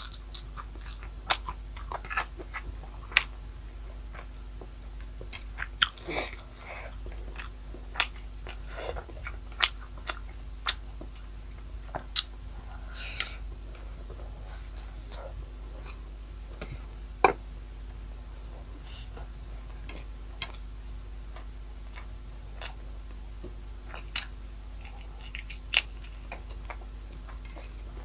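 Close-miked eating sounds: a person chewing and biting mouthfuls of rice and pork, with irregular wet mouth clicks and smacks scattered throughout and a low steady hum underneath.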